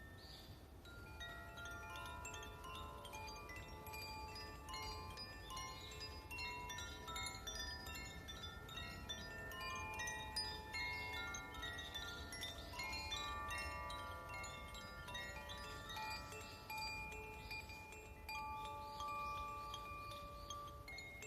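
Metal chimes ringing, with many clear tones struck one after another and left to ring over each other in a continuous shimmer, over a faint low rumble.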